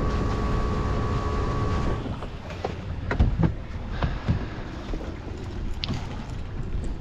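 Boat running fast across open water: a steady outboard engine whine over wind and rushing water. About two seconds in this cuts off abruptly, leaving the stopped boat with water lapping and a few sharp knocks against the hull.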